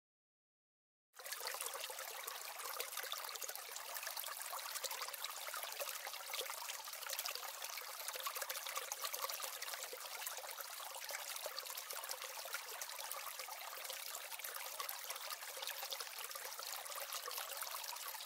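Steady trickle of running water, thin with no low rumble, starting about a second in after dead silence.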